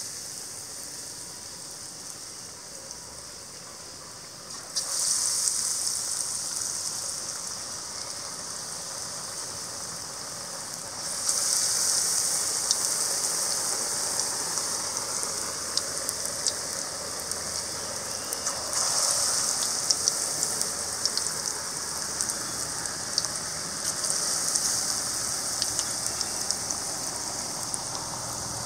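Batter-coated sweet potato bondas sizzling as they deep-fry in hot oil, with a steady hiss and many small crackling pops. The sizzle surges each time another dipped ball goes into the oil, about four times.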